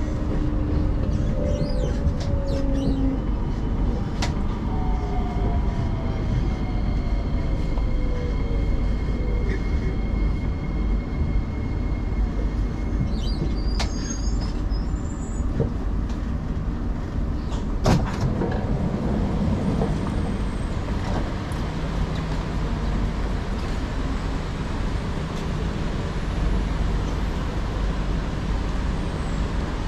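Singapore MRT train heard from inside the carriage, slowing into a station: a steady rumble under a motor whine that falls in pitch as it brakes. There is a sharp clack about eighteen seconds in, and the train stands at the platform.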